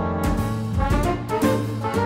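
Background music: swing-style jazz with brass over a steady bass, with a drum hit about twice a second.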